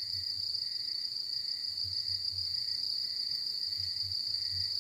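A steady, high-pitched chorus of night insects, crickets, trilling without a break, with soft irregular low thumps beneath it.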